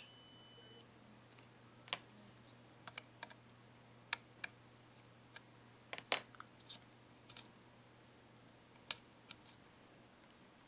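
Scattered, irregular light clicks over a faint steady low hum.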